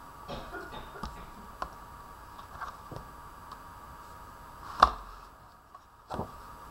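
A hardcover picture book being opened and its pages turned on a wooden table: soft paper rustles and small clicks, with one sharp knock about two-thirds through and a shorter one just before the end.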